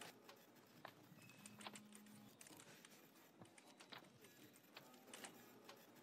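Near silence: faint room tone with a few scattered faint clicks and a brief faint low hum.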